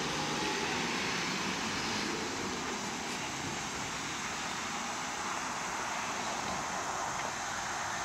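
Steady outdoor street ambience: an even, unbroken noise with no distinct events standing out.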